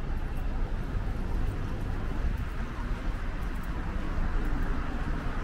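Steady city traffic rumble from buses and cars in the road, with footsteps ticking on the paving stones.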